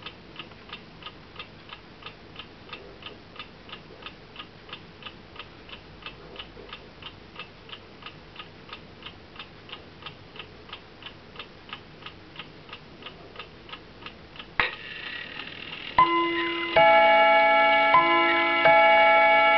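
Small Hermle clock movement with a floating balance ticking quickly and evenly, about three to four ticks a second. About fifteen seconds in, a click sounds as the chime train releases. The ting-tang chime hammers then strike the gong rods, alternating two notes that ring on over each other.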